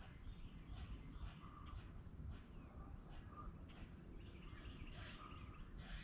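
Quiet woodland ambience: faint, scattered short chirps and calls of small animals, with a few light clicks over a low rumble.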